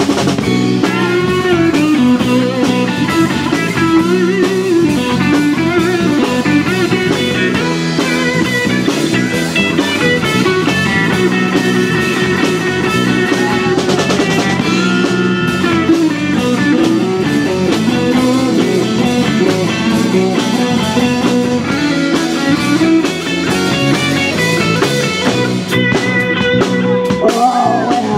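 Live blues-rock band playing an instrumental passage: an electric guitar plays a lead line with bending notes over bass guitar and drum kit.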